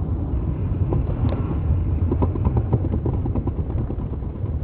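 Steady low rumble of road and engine noise inside a moving car, picked up by a dashcam's low-quality microphone, with a few faint clicks in the middle.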